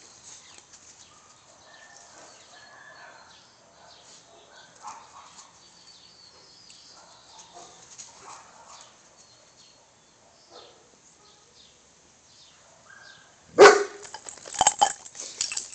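German Shepherd dogs at play: mostly faint, scattered sounds, then a loud bark near the end followed by a few more sharp barks.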